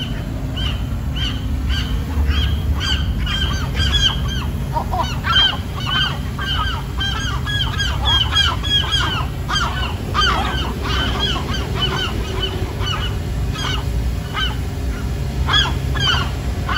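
A flock of seagulls calling: harsh, repeated squawks, many overlapping and in quick succession, thinning out near the end. A low steady rumble runs underneath.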